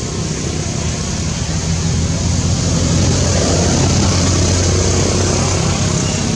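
A motor vehicle engine running close by: a steady low rumble that grows louder around the middle.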